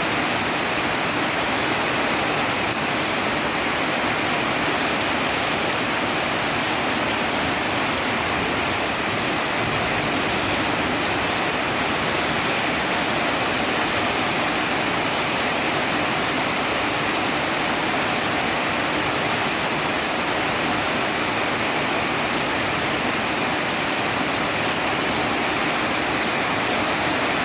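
Steady rain falling hard, an even hiss of water with no breaks or individual drops standing out.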